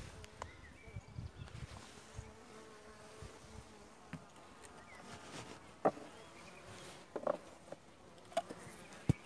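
Honeybees buzzing around an opened hive, their wavering hum drifting as bees fly past. A few sharp knocks sound in the second half.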